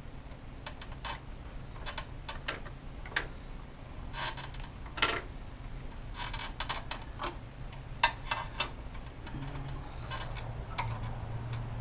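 A screwdriver and small metal parts clicking and tapping irregularly as a clamp is pried and wiggled apart, with one sharper click about eight seconds in.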